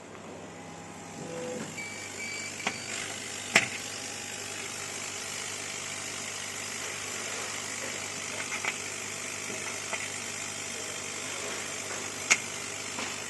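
Steady hum of a running laser machine and its CW-5000TG water chiller, with three quick electronic beeps about two seconds in and a few sharp clicks, the loudest about a third of the way through and another near the end.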